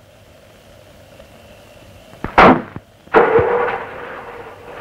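A car door slams shut about two and a half seconds in, then the car's engine starts and runs loudly.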